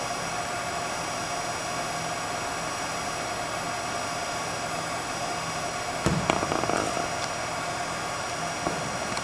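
Steady hum and hiss of an indoor arena's air handling. About six seconds in comes a sharp knock followed by about a second of rustling, and a small click near the end.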